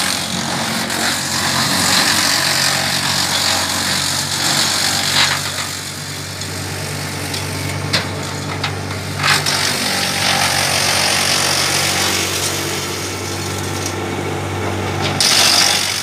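Tractor-driven Hasatsan DP 700 wood chipper running steadily over the hum of the tractor engine, chipping branches as they are fed in, with a few sharp cracks of wood being cut.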